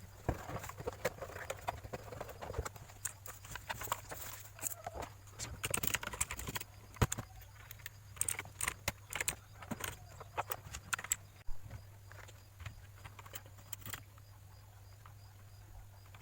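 Irregular clicks, knocks and rustling of a mechanical keyboard and its packaging being handled during unboxing, over a steady low hum. The handling thins out after about twelve seconds, leaving only a few scattered clicks.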